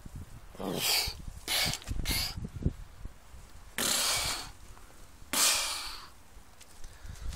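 Red deer stag in rut giving five short, hissing bursts of breath, unevenly spaced, while thrashing its antlers against the ground and branches.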